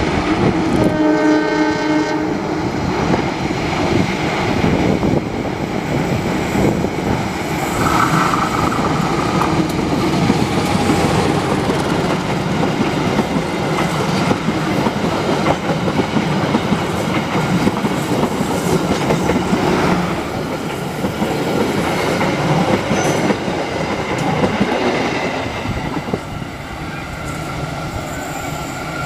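Passenger train horn sounding for about two seconds, then the train's coaches rolling past close by with steady wheel-and-rail noise and a clickety-clack over the rail joints. A short high squeal comes about eight seconds in, and the noise eases a little near the end as the last coach draws away.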